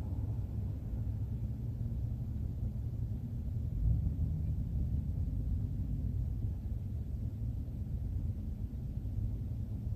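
Steady low rumble of street traffic, with a brief louder swell about four seconds in.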